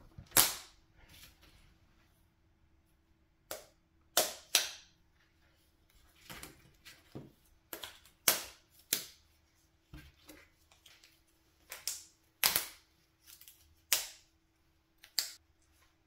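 Slap bracelets being straightened and slapped onto a wrist: a string of sharp snaps and slaps, over a dozen at irregular intervals, the loudest about half a second in.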